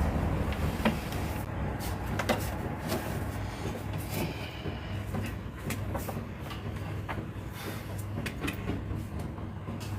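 Scattered clicks and light knocks of audio cables and sound equipment being handled and plugged in, over a low steady hum.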